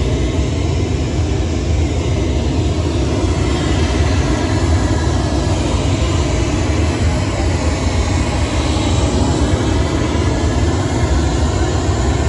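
Pink noise test signal played loud through a loudspeaker: a steady, even hiss with a strong low rumble that does not change. It is the test signal for measuring how much sound comes through the venue's walls.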